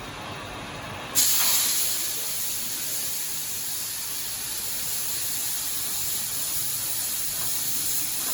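Gas cutting torch on a turtle-type track cutting machine hissing; about a second in the hiss jumps suddenly to a loud, high, steady jet hiss that then holds.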